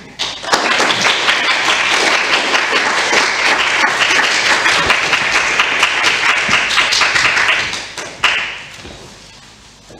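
Audience applauding: dense, steady clapping that starts about half a second in, holds for about seven seconds and dies away near the end, with one sharp louder sound as it fades.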